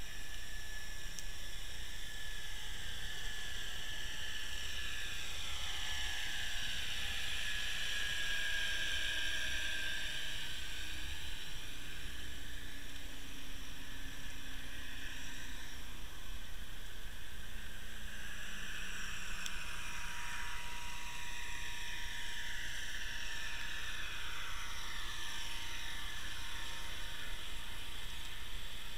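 Underwater hiss with the whine of a passing boat's motor and propeller, its pitch sliding slowly up and down in long arcs.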